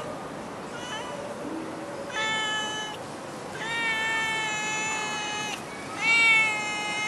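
Cat meowing repeatedly: a short call about a second in, then three long, drawn-out meows held at a steady pitch, the middle one about two seconds long and the last one loudest.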